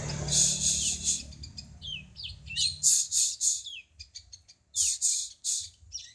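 A small songbird, a cungko, singing. It gives phrases of rapid, high, scratchy chirps mixed with short falling whistles, about four phrases separated by brief pauses.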